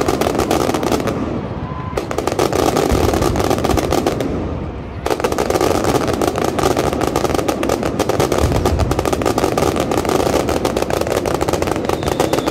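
Fireworks display: aerial shells bursting in rapid succession, a dense barrage of crackling bangs that thins briefly about four seconds in and then picks up again.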